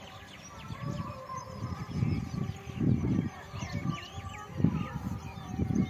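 Many birds chirping and calling together, with irregular low rumbles that grow louder from about two seconds in.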